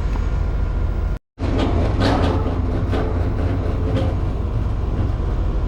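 Rheem Prestige outdoor condenser unit running with a steady low hum and fan noise; its ECM condenser fan motor is failing, which the technician reads from the motor hanging up and slowing with amp-draw spikes. The sound drops out completely for a moment about a second in, with some faint knocks from handling the wiring after it.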